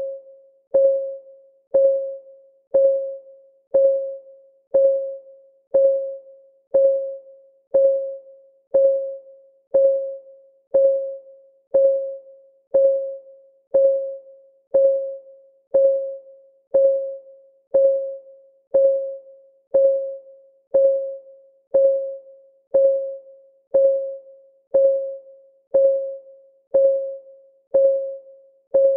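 Countdown timer's clock-ticking sound: one tick a second, steady and even, each a sharp click followed by a short ringing tone that dies away before the next.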